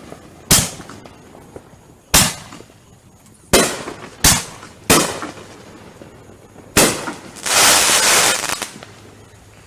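Consumer fireworks going off: six sharp bangs spaced about a second apart, each with a short echoing tail. Near the end comes a dense burst of noise lasting over a second.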